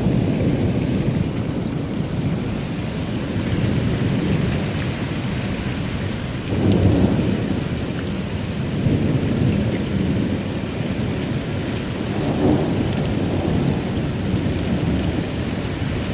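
Thunderstorm: steady rain with low rolling thunder rumbling under it, swelling twice, a little past the middle and again near the end.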